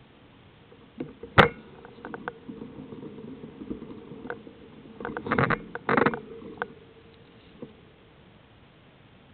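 A few sharp knocks and rattles over a faint steady hum, the loudest knock about a second and a half in and a dense cluster around five to six seconds in.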